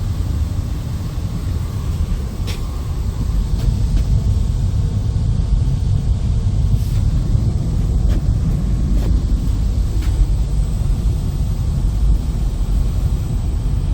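Rooftop ventilation blowers running inside sound-insulating noise cabinets: a steady low rumble, with a couple of faint clicks.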